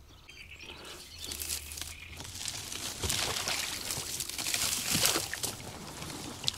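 Water splashing and trickling close by, starting quietly and growing after about a second, with a couple of short knocks.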